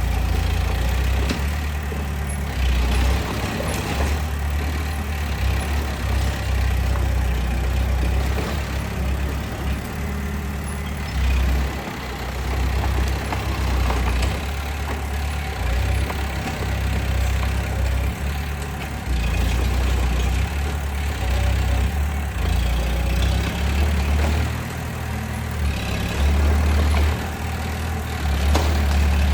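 Bulldozer's diesel engine running, a heavy low rumble that swells and eases every few seconds as the load on it changes.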